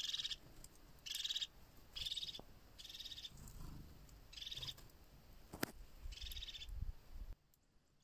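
Crested tit giving its purring, rolling trill call: six short trills about a second apart. A single sharp click comes about five and a half seconds in.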